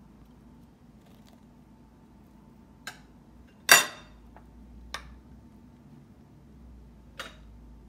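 A metal fork clinking against a plate four times. The loudest clink, about halfway through, has a short ring after it as the fork is laid down on the plate.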